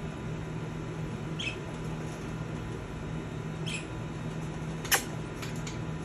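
Budgerigars giving a few short, high chirps, spaced a second or two apart, with one sharp click about five seconds in, over a low steady hum.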